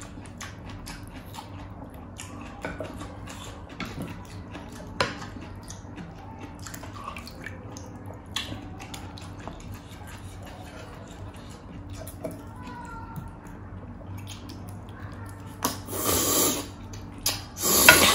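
Close-up eating sounds: many soft smacks and clicks of chewing and of fingers in wet food, then two loud slurps near the end, as pork hock meat and sour broth are sucked from the hand.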